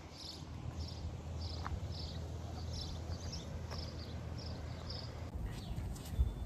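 Light, even footsteps on asphalt, about two and a half a second, as a handler and a Swedish Vallhund on a leash walk along a street. Near the end come a few sharp clicks and a knock.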